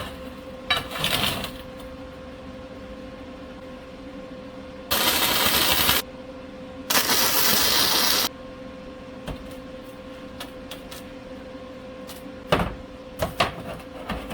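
Gasless flux-core MIG welder striking two tack welds, one about a second long and one about a second and a half, each a loud, even arc hiss that starts and stops sharply. The welder is turned up for 3/16-inch steel. A few light clicks and knocks of handling come before and after, over a faint steady hum.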